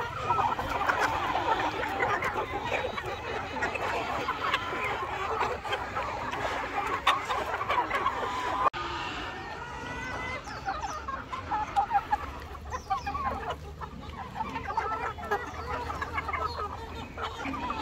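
A large flock of chickens clucking all at once, a dense, continuous chatter of overlapping calls.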